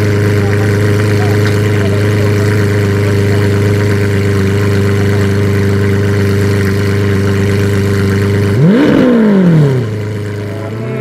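Bugatti Centodieci's 8.0-litre quad-turbo W16 idling steadily, then blipped once about three-quarters of the way in: the pitch rises sharply and falls back over about a second, and the engine note drops away after it.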